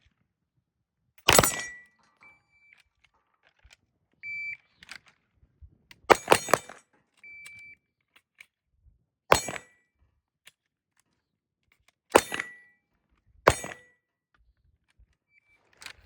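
Glock pistol shots fired one at a time at uneven intervals, about six in all, two of them close together. Faint short beeps sound between the shots.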